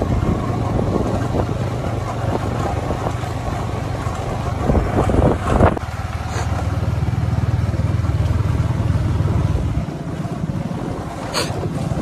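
Motorcycle engine running steadily while riding a bumpy dirt track, with wind noise on the microphone and a louder rough stretch about five seconds in.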